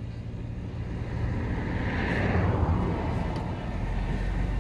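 A vehicle engine running steadily with a low hum, and a rushing noise that swells about two seconds in and then fades.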